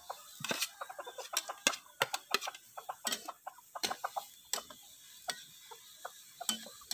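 Metal spatula clinking and scraping against a steel wok as vegetables are pushed off a plate and stirred in: an irregular run of sharp clinks, several a second.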